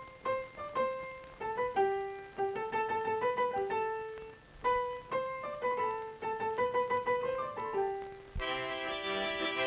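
Cartoon soundtrack music: a piano picks out a simple tune one note at a time, each note fading. Near the end, fuller music with held notes comes in.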